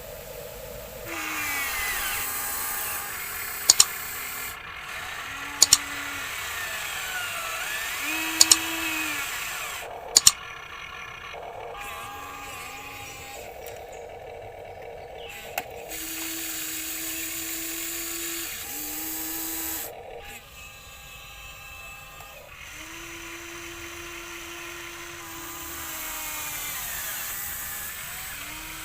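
Small electric gear motors of a remote-control toy construction vehicle whining in short runs that start, stop and shift in pitch. Four sharp clicks come between about 4 and 10 seconds in.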